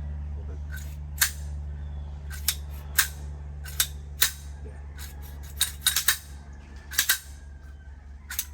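Metal clicks and clacks from handling a Desert Eagle .50AE pistol, about a dozen sharp, irregular knocks, some in quick clusters, over a steady low hum.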